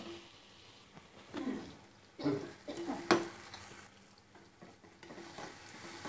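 Metal spoon scraping and stirring chopped onions around an aluminium kadhai, with a faint sizzle of the onions frying in oil. A few scrapes stand out, the sharpest a clink of metal on the pan about three seconds in.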